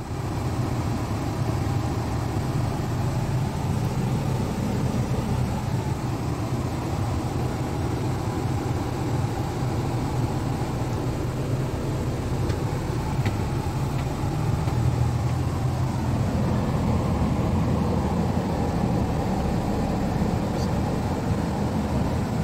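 Renault camper van's engine running while driving, heard from inside the cab: a steady low drone with road and cabin noise.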